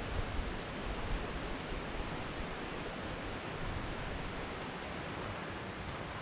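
Steady rushing of a mountain creek in the rocky gorge below, with some low wind rumble on the microphone.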